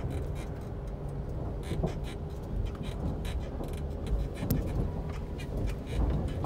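Car rolling slowly over a bridge deck of loose wooden planks, heard from inside the cabin: a steady low rumble with irregular knocks and clatter as the tyres cross the boards.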